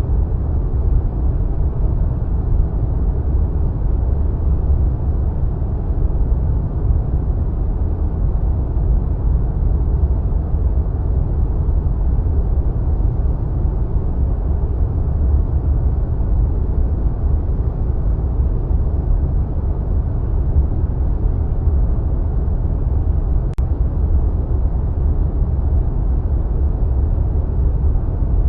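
Wind sound effect: a steady, deep rush of wind with most of its weight in the low bass and little hiss on top.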